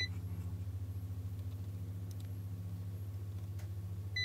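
In-circuit ESR capacitor tester beeping as its probes touch capacitors on a printer mainboard: the last of a quick run of beeps right at the start (several beeps mean high ESR), then a single short high beep at the very end (one beep marks a capacitor that is most likely good). A steady low electrical hum runs underneath.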